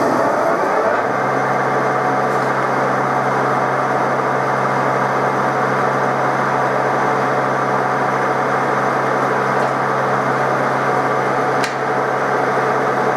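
TOS SN63B engine lathe's spindle and gearbox spinning up over about the first second, then running steadily with a hum and a broad hiss. A single sharp click comes near the end.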